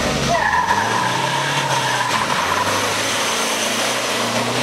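Off-road rally pickup's engine running as it drives past on a dirt track. A separate steady high-pitched tone sounds from about a third of a second in and lasts roughly a second and a half.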